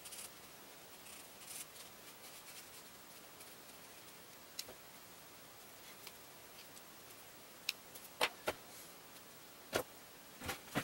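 Faint scratching of a black marker on paper, then a few sharp clicks and knocks near the end.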